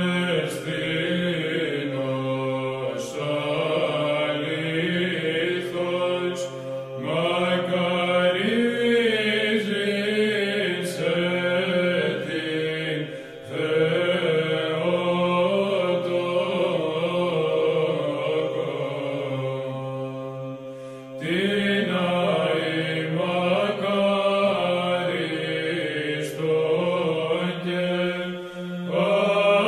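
Orthodox church chant: voices sing a slow melody over a steady held drone, with brief pauses between phrases.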